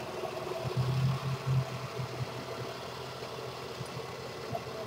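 Street traffic with a vehicle engine idling: a steady low engine hum that is strongest and pulses a little about a second in.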